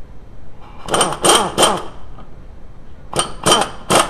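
Impact wrench fired in short bursts, three rattling bursts, a pause, then three more, driving a press tool that pushes the hub into a new front wheel bearing.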